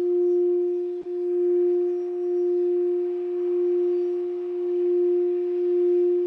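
A sustained meditation tone: a single steady pitch with a fainter octave above it, swelling and easing in slow waves about every second and a half. It drops out for an instant about a second in.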